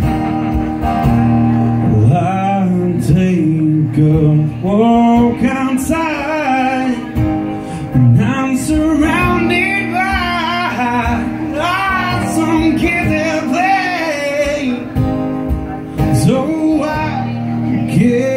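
A man singing to his own acoustic guitar accompaniment, sung phrases over steady guitar chords, live through a small PA.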